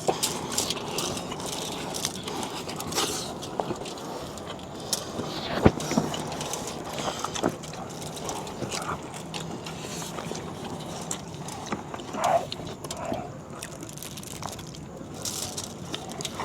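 Eating sounds: chewing with scattered small clicks and taps of utensils, and one sharp click about five and a half seconds in, over a steady background hiss.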